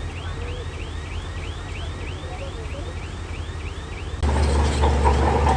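Diesel engine of heavy earthmoving machinery running with a low hum, over a warbling alarm that chirps about three times a second. About four seconds in, the machine gets abruptly louder and rougher, as if it is put under load.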